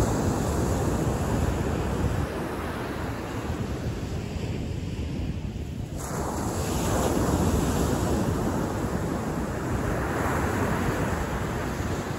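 Ocean surf breaking and washing up the beach, swelling and easing, with wind buffeting the microphone.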